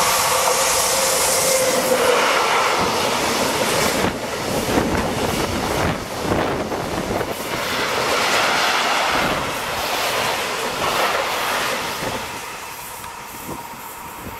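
An SNCF BB 26000 'Sybic' electric locomotive hauling an alumina freight train past at close range: a high tone sliding down over the first two seconds, then the wagons' wheels rumbling and clacking over the rails. The noise eases off near the end as the train goes by.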